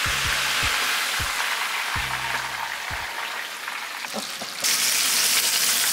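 Chicken wings sizzling in hot oil in a deep-fry pot as the wire fryer basket is lifted out to drain, a steady hiss that grows louder and brighter near the end, over background music with a low beat.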